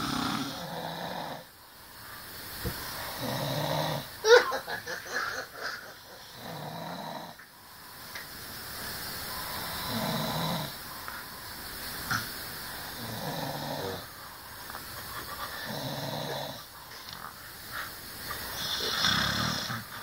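A sleeping person snoring heavily, open-mouthed, in long rumbling breaths about every three seconds, with one louder, sharper snore about four seconds in.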